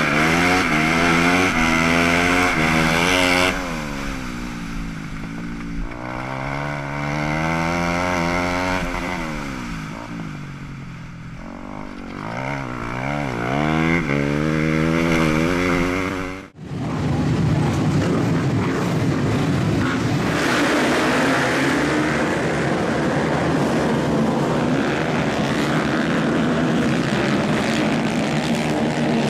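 Onboard sound of a dirt-track racing motorcycle engine revving up and easing off as it laps, its pitch repeatedly rising and falling. About halfway through it cuts suddenly to a pack of flat-track motorcycles running together, a denser, steadier engine sound.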